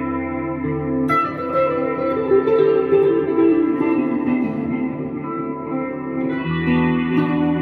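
Guitar-led instrumental music: a guitar plays a melody over held low backing chords, which change about a second in and again near the end.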